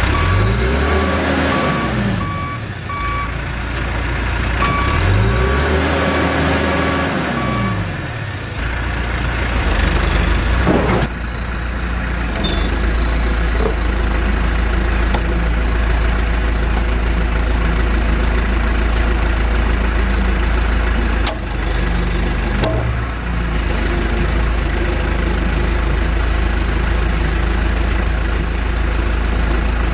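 John Deere 410G backhoe loader's diesel engine revving up and back down twice while its reversing alarm beeps about twice a second. After about eight seconds the beeping stops and the engine runs on steadily, with a brief knock about eleven seconds in.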